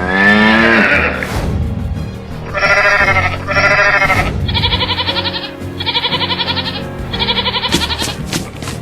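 Five quavering bleat-like animal calls over background music, each about half a second long, the last three higher-pitched, after a longer drawn-out call in the first second. A run of quick, sharp taps starts near the end.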